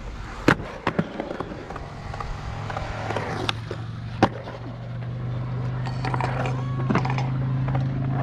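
Skateboard being ridden: wheels rolling, with several sharp clacks of the board hitting the ground. A steady low hum comes in after about two seconds and grows louder.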